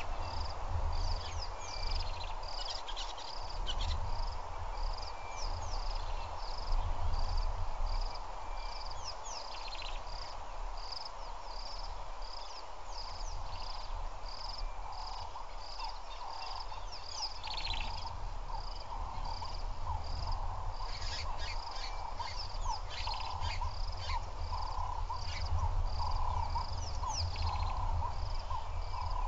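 Wild birds and insects calling: a high note repeats about one and a half times a second throughout, with scattered quick falling chirps, and from about two-thirds in a lower call repeats about once a second. A steady low rumble lies underneath.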